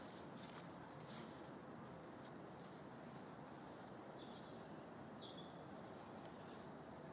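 Faint outdoor background noise with a few short, high bird chirps: a quick run of three or four about a second in, then a couple more with falling pitch around four to five seconds in.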